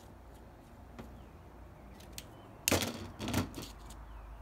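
Metal parts of a Jaguar independent front suspension upper control arm clinking and rattling as they are handled and fitted together by hand. A few light clicks are followed by two louder bursts of clatter about three seconds in.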